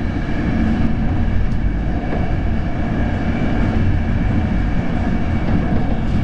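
Intercity train running at speed: the steady rumble of wheels on rails, heard from inside the passenger coach.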